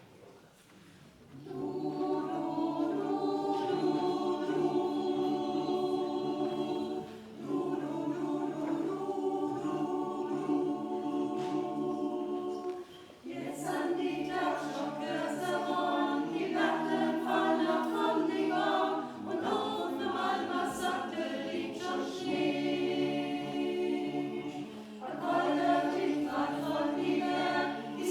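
Choir singing a slow ballad in sustained chords. It enters about a second and a half in, with short breaks between phrases around 7 and 13 seconds in.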